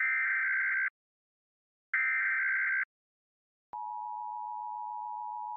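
Emergency Alert System broadcast signal: two bursts of buzzy digital data tones, each about a second long and a second apart, then after a click the steady two-tone attention signal starts, a bit less than four seconds in.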